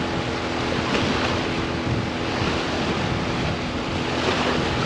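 Wind buffeting the microphone over waves washing against the shore, with a faint steady hum underneath.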